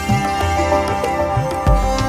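Instrumental music in an Indian classical style: plucked strings over a steady drone, with a drum pattern of low strokes that slide in pitch.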